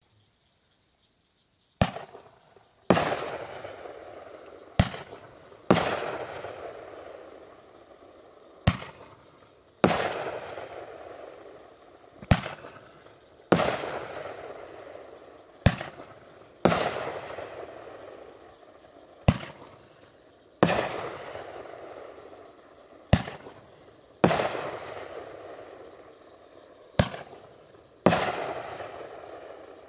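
Texas Outlaw Fireworks 'One Bad Outlaw' fireworks cake firing its shots one at a time, about every three and a half seconds, after a silent start of about two seconds. Each shot is a sharp launch thump, then about a second later the aerial burst, which fades over a couple of seconds. There are about eight shots.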